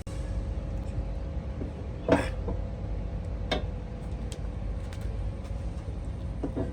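A steady low machine hum with a faint steady tone, broken by a few sharp knocks, the loudest about two seconds in.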